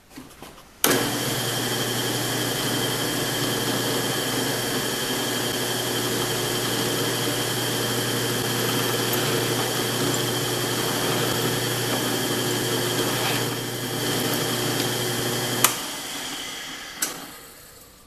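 Drill press switched on about a second in and running steadily with a constant hum while the twist bit cuts down through the PVC pipe wall into the hardwood hub. It switches off with a click near the end and spins down.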